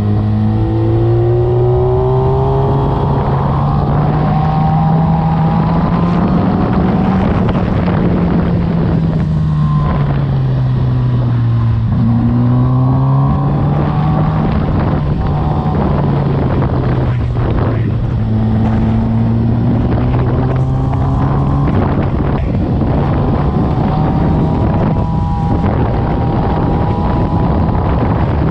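Suzuki GSX-R1000 inline-four engine running under load on a twisty road, its note rising and falling several times as the throttle is rolled on and off through the bends. Wind rushes over the microphone throughout.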